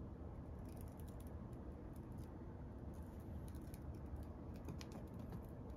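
Faint, irregular light clicks and scratches as a cat paws at a feather-wand toy's stick on a woven bedspread, over a low steady room hum.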